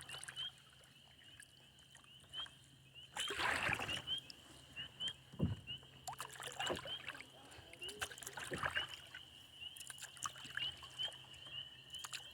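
Kayak paddling: irregular paddle strokes splashing and knocking every second or two, the loudest a little over three seconds in. Under it a steady high-pitched chirping repeats a few times a second.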